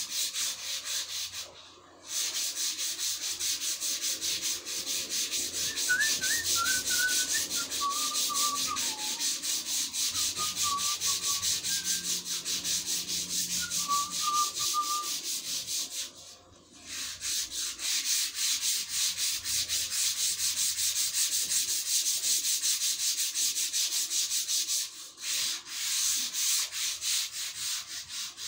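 Sandpaper rubbed by hand back and forth over a long rounded-top workpiece in fast, even strokes, stopping briefly about two seconds in and again about halfway through.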